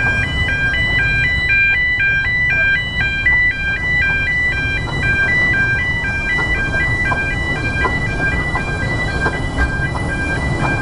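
A jingly electronic tune of quick, high beeping notes plays throughout, over the low rumble of a narrow-gauge train running slowly. Faint clicks from the wheels on the rails come through in the second half.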